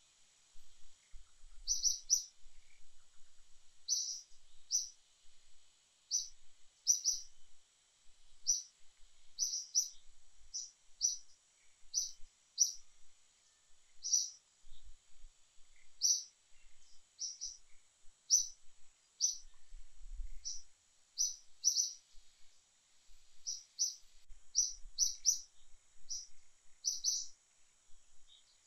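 Bird repeating short, high chirps, singly or in quick twos and threes, one or two a second, with a few faint low thumps in between.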